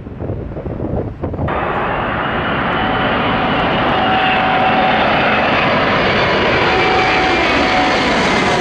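Airbus A380's jet engines running with a steady roar and a faint whine, slowly growing louder and brighter. Wind buffeting the microphone before it, cut off sharply about a second and a half in.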